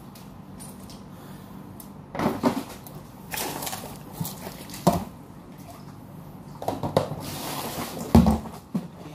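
Plastic catering food containers and lids being washed by hand over a basin of water: irregular hollow plastic knocks and clatter with some splashing, and a heavy thump about eight seconds in as the big red container is tipped and set down.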